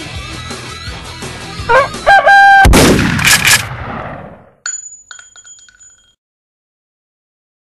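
Heavy-metal soundtrack ending on a sliding, squealing tone and a very loud crash that dies away over about a second and a half. A short, high, steady electronic tone with faint ticks follows, then the sound cuts to silence.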